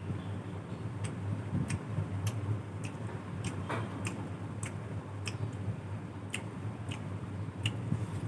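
Soft wet clicks of a mouth chewing, with lips smacking at about one to two a second, over a steady low hum.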